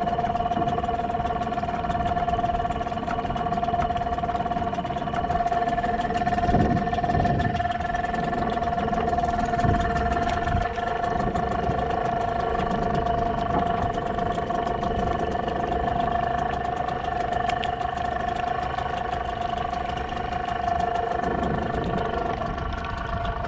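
A small fishing boat's engine running steadily at an even speed, with a constant whine over an uneven low rumble.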